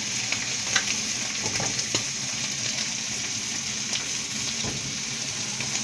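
Tomatoes, serrano chiles and a garlic clove sizzling steadily as they roast over low heat on a hot comal, with a few light knocks as they are turned by hand.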